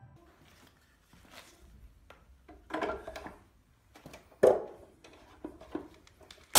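Scattered quiet knocks and clicks with a brief scrape, from handling at an AEG abrasive cut-off saw with a steel part clamped in its vise; the loudest knock comes about four and a half seconds in.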